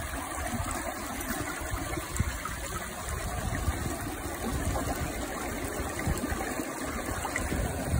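Glacial meltwater stream running fast over rocks in an ice channel: a steady rushing of water.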